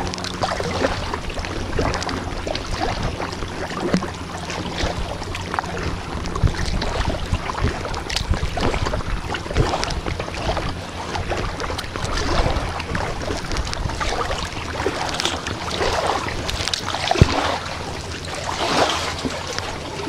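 Kayak paddling: the paddle dips and splashes and water washes around the hull, with swells of splashing every few seconds, over a low rumble of wind on the microphone.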